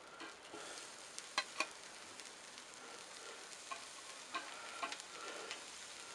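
Beef patties and bacon sizzling on a hot stainless-steel grill grate over charcoal, a faint steady hiss. A few light clicks of the metal spatula against the grate break through it.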